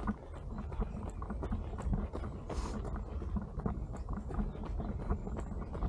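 A runner's footsteps on a park path, with a steady low rumble of wind on the microphone.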